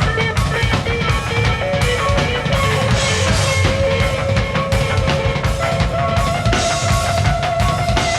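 Rock music with distorted guitars and a driving drum beat.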